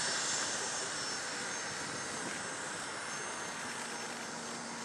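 Boeing 777-300ER's GE90-115B turbofans at taxi power: a steady jet engine rush with a faint high whine, slowly growing quieter.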